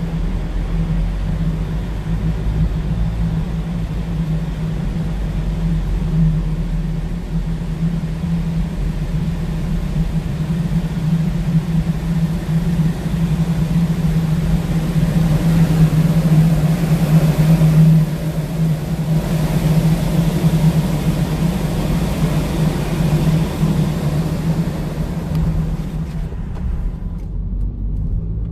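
Low, steady drone and hum heard from inside a car's cabin as it creeps across a ferry's car deck, with the car's own engine and tyres under the ship's machinery and ventilation hiss. The hiss swells for a few seconds, then falls away near the end as the car rolls out of the deck onto the shore ramp.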